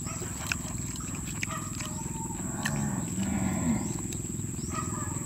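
Close-miked chewing of food with small wet mouth clicks, and a short hummed "mm" about halfway through, over a steady low drone.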